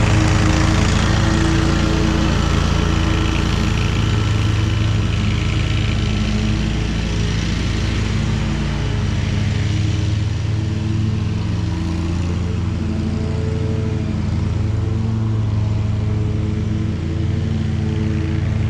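Hustler zero-turn riding mower's engine running steadily under mowing load, with a humming drone and a constant whir, easing off a little about halfway through as the mower moves away.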